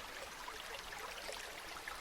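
Small stream running over stones: a steady babble of water, with many small bright splashes and trickles.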